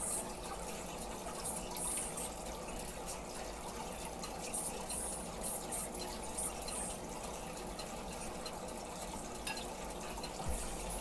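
Aquarium water running and splashing in a steady trickle, with a few faint light ticks.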